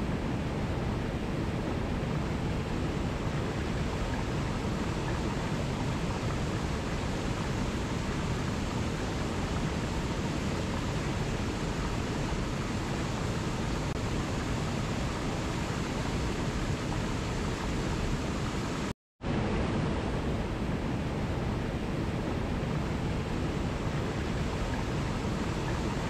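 Small waterfall cascading over rocks into a pool, a steady rush of water. It drops out for a split second about nineteen seconds in, then resumes.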